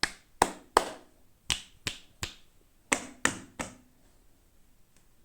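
Nine sharp clicks in three groups of three quick ones, each with a short ringing tail.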